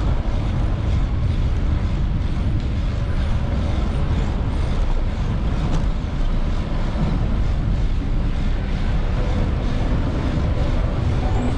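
Steady low rumble of wind on the microphone and street noise while riding a bicycle.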